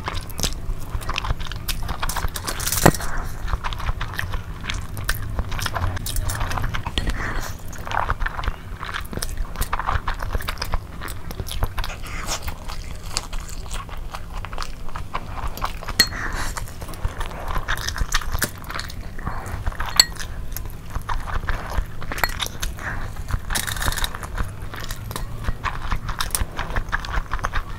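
Close-miked eating of saucy black bean noodles: wet slurping, chewing and lip smacks, with a few sharp clicks from a metal fork against the foil-lined tray.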